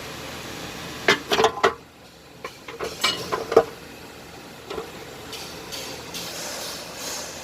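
Metal parts and hand tools clinking and clattering in a series of short, sharp knocks, bunched into two clusters in the first half, with one more knock a little later, over steady background noise.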